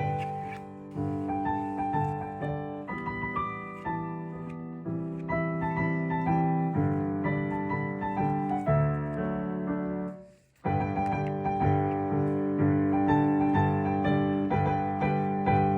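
Background instrumental music of held chords changing every second or so, which cuts out briefly about two-thirds of the way through and then resumes.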